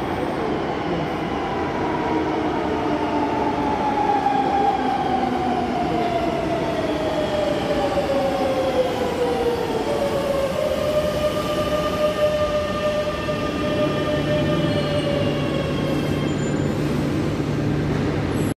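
Madrid Metro 9000-series electric train pulling into a station: its traction motors whine, the pitch falling steadily for several seconds as it slows, then holding a steady tone, with a low hum joining near the end.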